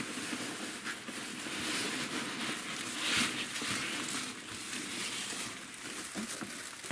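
Plastic bag and foam packing peanuts rustling and crinkling as hands dig an item out of a cardboard box, with a louder rustle about three seconds in.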